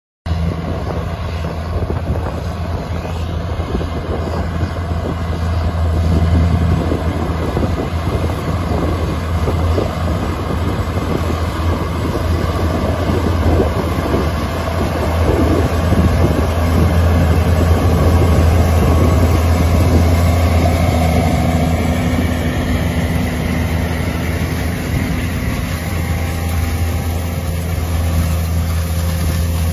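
Versatile 620 DT tracked tractor's 15-litre Cummins diesel running steadily under load while pulling an air seeder, a continuous low drone that swells a little as the machine passes close.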